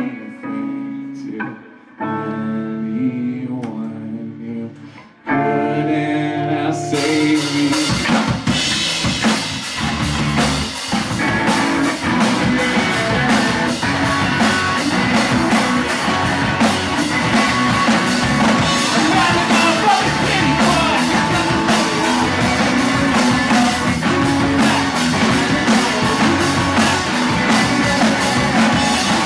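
Live indie rock band. Electric guitar chords ring out with little else for the first few seconds, then the drums and the full band come in about seven seconds in and play on loudly.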